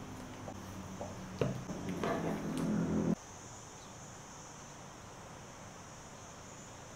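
Knife cutting through a moist semolina pistachio cake on a plate: a sharp tap about a second and a half in, then about a second of cutting and scraping that stops abruptly just after three seconds, over a faint steady high hiss.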